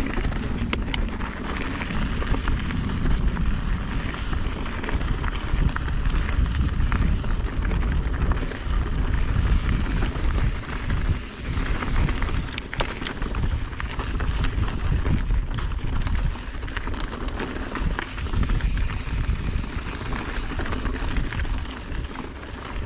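Wind buffeting the mountain bike's camera microphone over the rolling crunch of knobby tyres on rocky, gravelly singletrack, with scattered sharp clicks and rattles as the bike hits stones.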